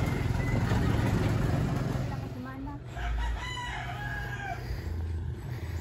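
A rooster crowing once, a call about a second and a half long starting about three seconds in, over a low background rumble.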